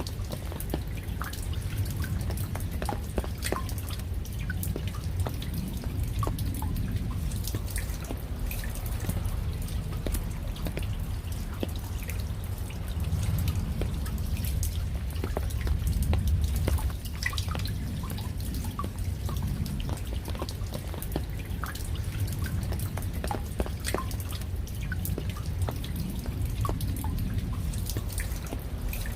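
Raindrops dripping: many separate, irregular ticks of water drops over a steady low rumble.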